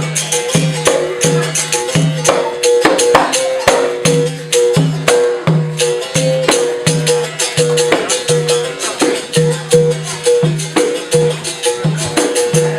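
Background music with a steady bass beat, a sustained melody line and shaker percussion.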